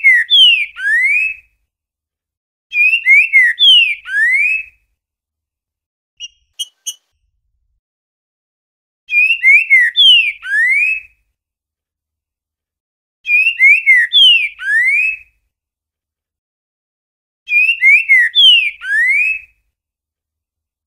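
Green-winged saltator (trinca-ferro) singing its 'boiadeiro' song: a short phrase of clear whistled notes ending in a rising slur, repeated five times with pauses of about two seconds between. A brief, quieter high call comes about six seconds in.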